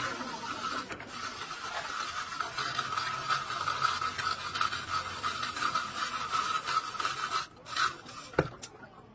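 Chain hoist hauling a heavy gearbox: a steady rasping rattle of chain running through the hoist that stops about seven and a half seconds in, followed by a single low knock.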